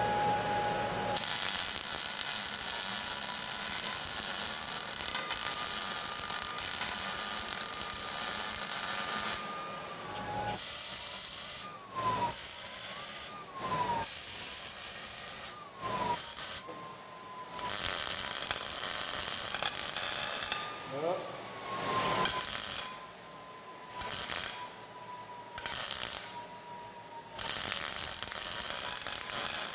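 A wire-feed (MIG) welder's arc crackling and hissing as beads are laid on a steel-tube frame. One long continuous bead comes first, then a series of shorter starts and stops, each burst a second or two long. A thin steady whine runs beneath.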